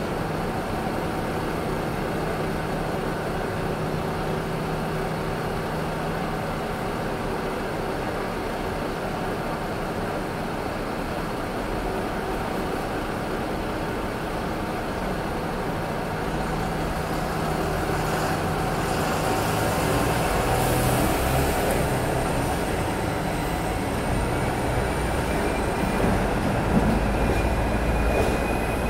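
Hong Kong double-decker electric tram standing with a steady low hum, then moving off in the second half: its motor whine rises in pitch as it gathers speed on the rails.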